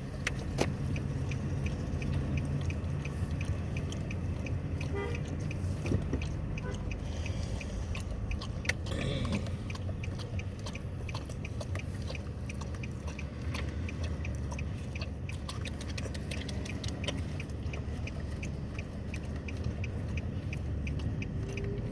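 Dog licking and chewing at a cup of soft-serve ice cream: wet smacking clicks coming rapidly and irregularly throughout, over a steady low hum.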